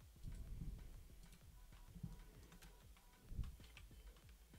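Faint computer keyboard keystrokes and mouse clicks, with a few soft low thumps, the loudest about three and a half seconds in.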